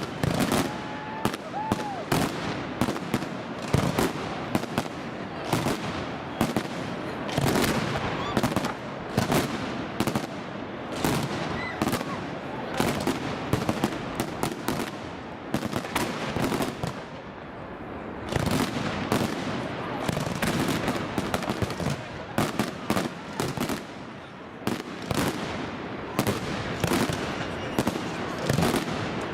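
Fireworks display: a rapid, dense run of shell bursts and crackling bangs, easing briefly twice before picking up again.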